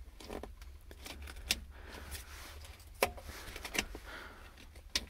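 About five scattered sharp clicks and light knocks from the excavator's key switch and cab controls being worked, the loudest about three seconds in, over a low wind rumble. The diesel engine is not turning over.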